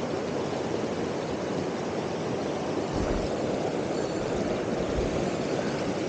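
Mountain stream rushing over rocks in shallow riffles, a steady rush of water with a few dull low thumps about three and five seconds in.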